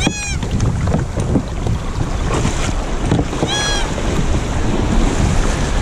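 Wind buffeting the microphone over the wash of surf on the beach. Two short high-pitched calls rise and fall, one at the start and one about three and a half seconds in.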